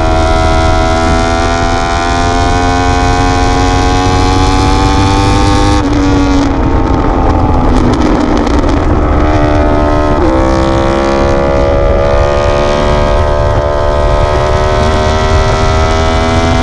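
Yamaha R1 sport bike's inline-four engine under way, its pitch climbing slowly as it pulls. About six seconds in the note drops and turns rough as the throttle closes. About ten seconds in it picks up again and climbs steadily, over a constant low rush.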